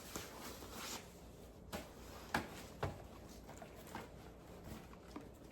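Plastic shopping bags rustling, with a few light knocks as grocery items are taken out and set down.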